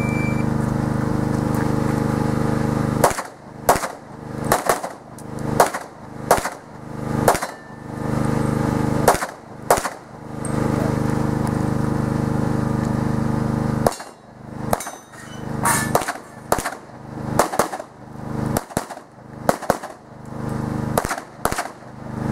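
Rapid pistol fire during an IPSC stage run: shots mostly in quick pairs start about 3 s in, pause for about four seconds in the middle, then resume in another string of pairs.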